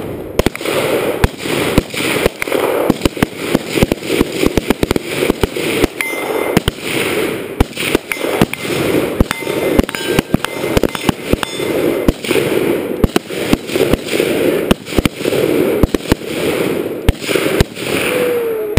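Several AR-15 carbines firing 5.56 mm rounds rapidly and together: a dense, irregular run of overlapping shots, several a second, with no pause. Southern Thunder binary exploding targets go off among the shots when hit.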